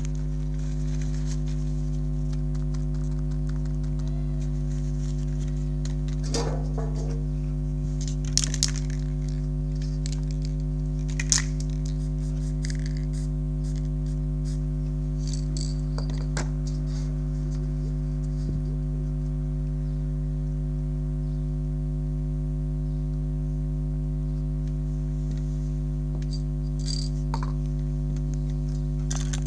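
Steady hum made of several low held tones, unchanging throughout, with a few brief hissing and clicking sounds on top.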